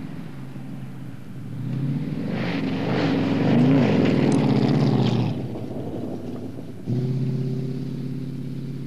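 Leyland P76 V8 revving hard as the car drives past across rough grass, its revs rising and falling, loudest in the middle with tyre and ground noise over the engine. Near the end it cuts suddenly to a steadier car engine note that slowly fades.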